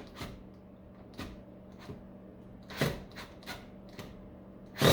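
Scattered clicks and knocks of a hand tool working screws out of the back of a battery charger's case, with one louder knock nearly three seconds in. A faint steady hum runs underneath.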